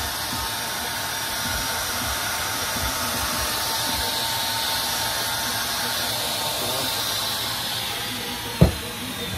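DeWalt handheld router with a flush-trim bit running free off the work, then switched off about seven seconds in, its whine falling as the motor winds down. A single sharp knock near the end.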